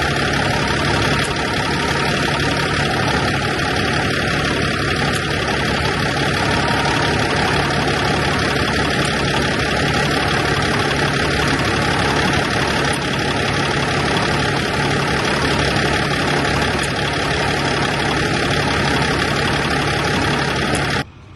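Dump truck's diesel engine idling with the air conditioning switched on for a refrigerant recharge, heard close up as a loud, steady rush of noise with a low steady hum under it. It cuts off suddenly near the end.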